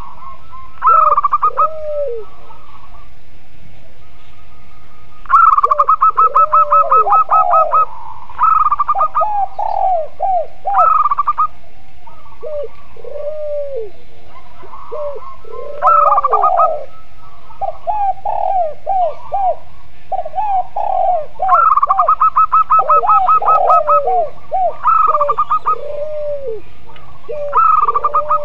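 Several doves cooing together: spotted dove (tekukur), zebra dove (perkutut) and local puter dove. Short arched coo notes repeat throughout, broken several times by fast rolling trills at a higher pitch that last a few seconds each, over a steady background hiss.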